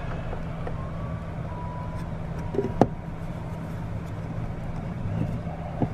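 Plastic handling noises as new tubing is fed into a water jug and a rechargeable jug pump head is fitted onto its neck, with one sharp click about halfway through, over a steady low hum.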